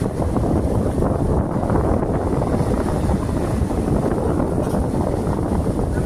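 Wind buffeting the microphone, a steady low rush, over small lake waves lapping and breaking on a sandy shore.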